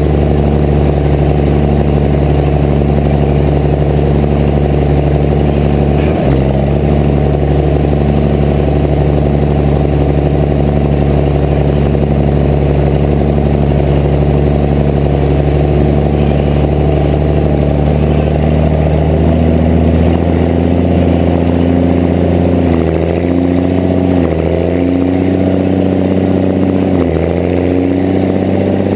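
Diesel engine of a Case IH Steiger four-wheel-drive tractor running steadily under way while towing a chisel plow. About two-thirds of the way through the engine note climbs higher in steps, dipping briefly and rising again a few times.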